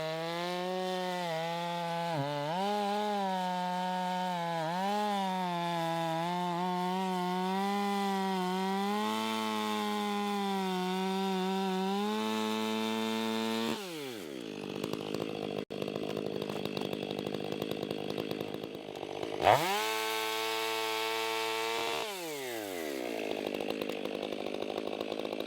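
Stihl professional two-stroke chainsaw cutting a large log at full throttle, its engine note wavering as the bar loads. About 14 seconds in, the throttle is let off and the engine drops away. It revs back up briefly at about 20 seconds and drops again near 22 seconds.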